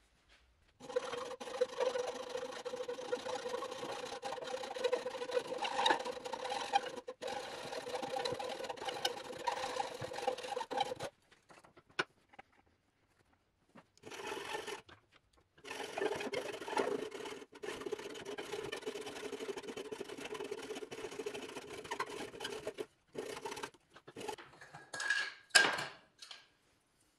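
Hand saw cutting across the end of a wooden axe handle clamped in a vise, in long steady runs of strokes broken by two pauses, then a few short separate strokes near the end, the loudest one about two seconds before the end.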